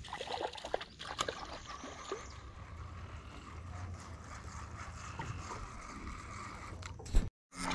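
A hooked redbreast sunfish splashing and thrashing at the water's surface as it is played in on a spinning rod, with water trickling and lapping. The splashes are sharpest in the first second.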